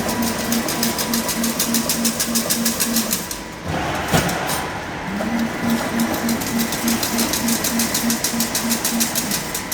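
Automatic double chain-link (diamond mesh) fence machine running through its cycle: a rapid rhythmic clatter of about four beats a second, a pause with a single knock about four seconds in, then the clatter starts again and stops near the end.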